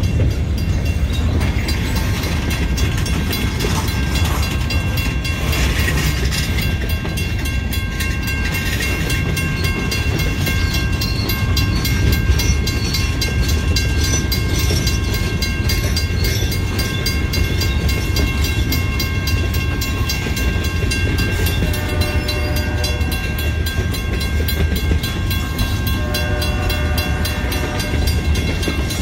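Freight train's gondola cars rolling past a grade crossing: a steady rumble of wheels on the rails. The crossing bell rings over it, with several steady high ringing tones.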